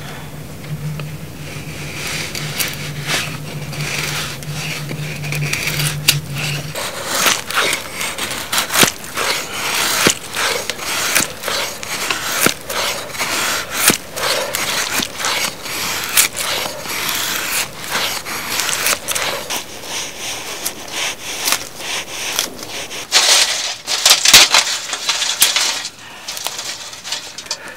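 Knife blade shaving thin curls off a split wooden kindling stick to make a feather stick: a run of repeated short scraping strokes. A low steady hum sounds under the first several seconds, and a burst of louder rustling comes near the end.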